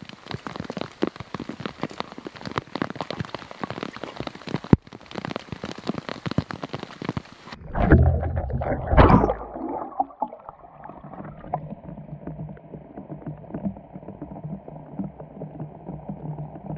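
Rain pattering, with close drops ticking sharply. About eight seconds in comes a loud splash as a GoPro camera rigged as a fishing bobber hits the lake, and then the sound turns muffled and dull, with a low steady hum, as the camera sits underwater.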